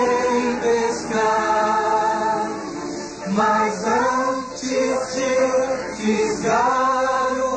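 Cartoon background music: a choir singing long held notes, several phrases sliding up into the note as they begin.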